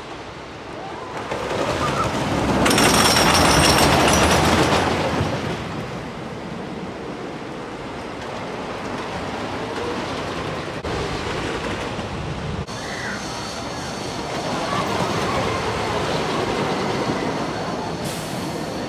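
Wooden roller coaster train rumbling and clattering along its wooden track. It swells loudest as it passes, about three seconds in, then runs on as a lower steady rumble that builds again near the end.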